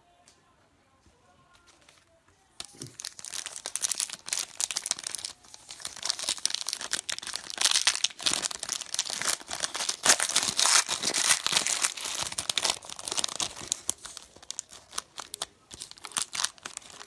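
Foil trading-card pack wrapper crinkling and tearing as it is pulled open by hand, starting suddenly about two and a half seconds in after a quiet start.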